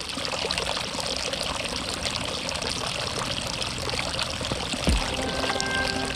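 A steady rushing, water-like noise. About five seconds in, a low thud and then music begin over it.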